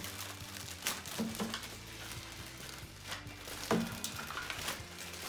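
Quiet background music with a few short clicks and knocks of plastic vacuum-cleaner accessories being handled, about a second in and again near the four-second mark.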